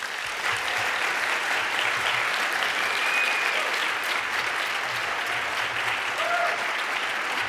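Audience applauding, starting at once and holding steady.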